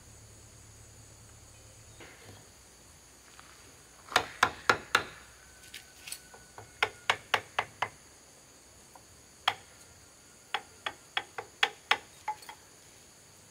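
Sharp knocks struck in three quick runs of four to six, about four a second, over a steady high insect chirr.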